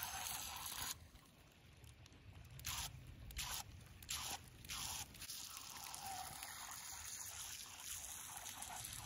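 Micro RC boat churning through shallow water, throwing a spray of wake: a spraying hiss in short bursts, several in the first five seconds, then a steadier hiss.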